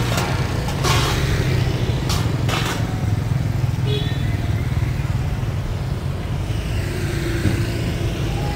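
Street traffic of passing motorbikes: a steady low engine rumble, with a few brief sharper noises in the first few seconds.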